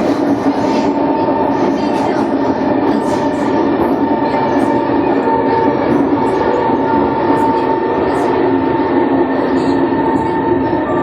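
Kawasaki Heavy Industries C151 metro train pulling into a station with an unusual braking noise: a loud steady whine of several held tones over the rumble of the train.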